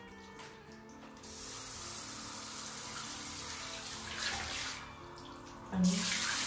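Handheld shower head spraying water onto a tiled floor and wall. It runs from about a second in until just before five seconds, stops briefly, then comes back louder near the end.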